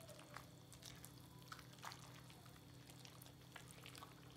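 Faint wet squishes and light clicks of a silicone spatula stirring elbow macaroni through cream and melting cheddar in a pot.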